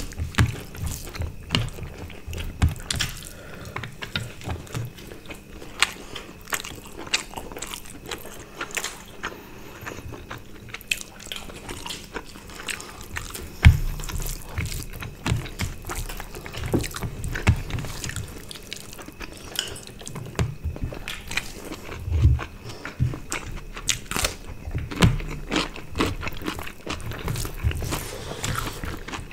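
Close-miked eating by hand: wet chewing, lip smacks and crunching bites of roast chicken and rice, with many short clicks and a couple of low thumps, the loudest about halfway through.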